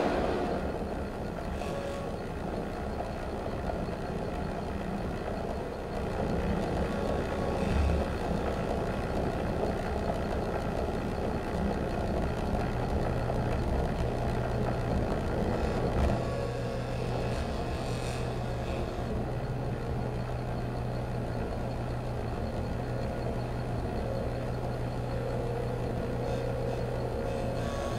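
Improvised electroacoustic noise performance: a steady low electronic drone under dense rumbling, scraping texture from sonified body signals and handled sound objects. A steady held tone enters about 25 seconds in.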